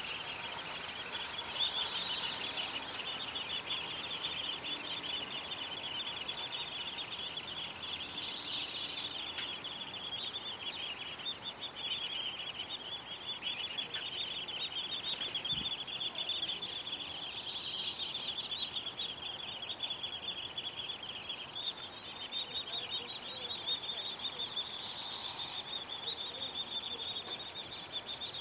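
Steady high-pitched chirring chorus of crickets, with a few louder bird call notes over it at intervals.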